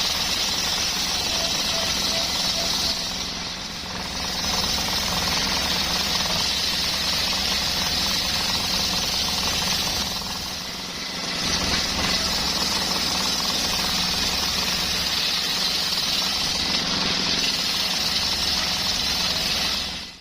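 Homemade circular sawmill running and cutting coconut wood: a steady, loud, high-pitched saw-blade noise over a low motor hum. It eases off briefly twice, about three and ten seconds in.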